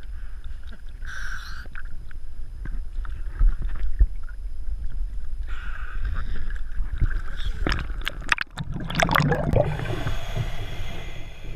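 Shallow river water sloshing and splashing against a half-submerged action camera, with a low rumble of water on the housing. Near the end comes a cluster of sharp splashes as the camera goes under, followed by muffled underwater noise.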